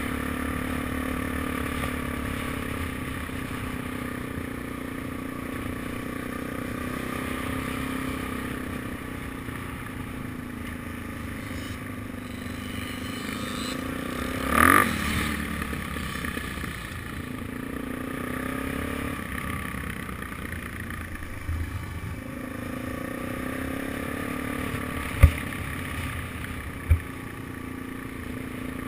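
Suzuki DR-Z400SM's single-cylinder four-stroke engine running steadily at low speed as the bike rolls along a dirt road, with one short louder burst about halfway through and two sharp knocks near the end.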